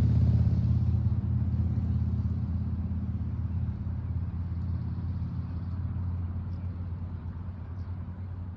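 Low, steady engine rumble that slowly fades away.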